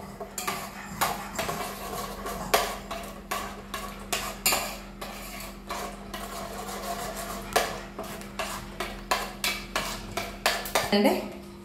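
A spoon clinking and scraping against an enamel cooking pot while stirring a thick masala gravy, in irregular knocks, over a steady low hum.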